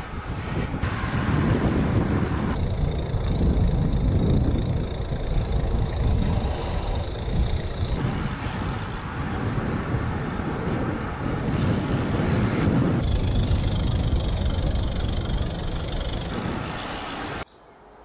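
Wind rumble and road noise on a bike-mounted camera while riding along a road, a heavy, uneven buffeting over several cut-together clips, dropping away suddenly near the end.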